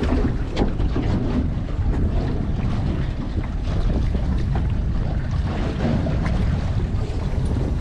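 Wind rumbling on the microphone aboard a small boat under way, with the sound of the sea around it.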